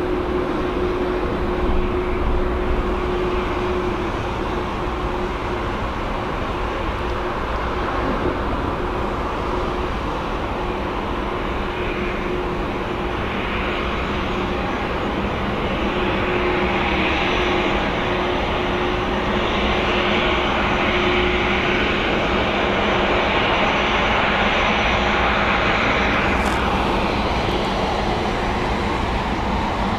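Dassault Falcon 8X's three rear-mounted Pratt & Whitney Canada PW307D turbofans running at taxi power as the jet rolls slowly past. A steady jet whine over a rumble, growing somewhat louder in the second half.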